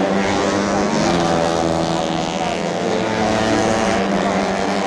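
Tuned four-stroke underbone race motorcycle engines running, a steady engine note with several pitches that shift a little.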